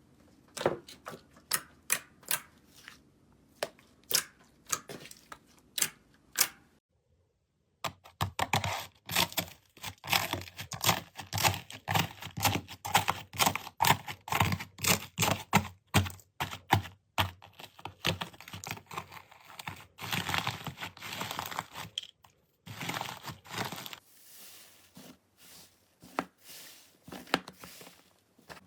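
Slime being squeezed and poked by hand, making sticky clicks and crackling pops. It starts as a run of separate sharp clicks, breaks off briefly, then turns into dense crackling for about fifteen seconds before fading to fainter crackles near the end.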